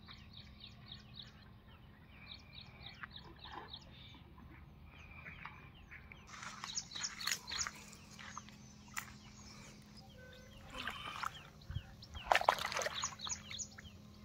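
A hooked snakehead splashing and thrashing in shallow water as it is played in, in bursts, loudest a couple of seconds before the end. A bird calls throughout in runs of short, quick chirps.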